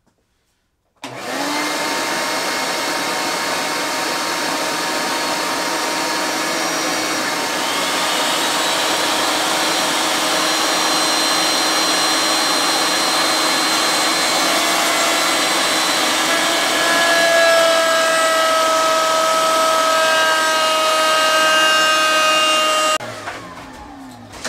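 Router table motor starting about a second in and running loud and steady while a padauk frame is fed past its straight bit to trim a rough-cut opening; its tones shift in pitch as the bit takes the cut. Near the end it is switched off and winds down.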